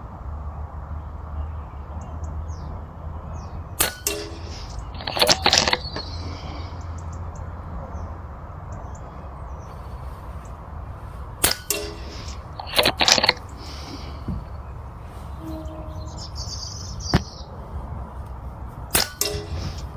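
.177 Epic 2 air rifle fired several times, sharp single cracks a few seconds apart. After some shots a quick cluster of metallic clicks and clanks follows about a second later.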